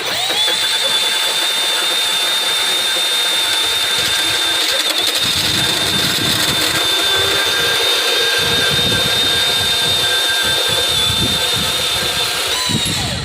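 Hercules 20V brushless cordless deep cut band saw starting up and running with a steady high whine as the blade cuts under the saw's own weight, with rough grinding from the cut partway through. It winds down near the end.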